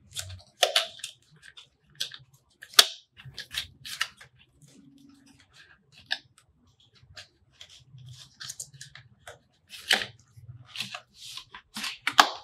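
A small cardboard retail box being handled and opened: the top flap is pulled open and the inner card insert slid out, giving scattered rustles, scrapes and sharp taps. The loudest snaps come near the end, as the clear plastic tray is lifted out of the box.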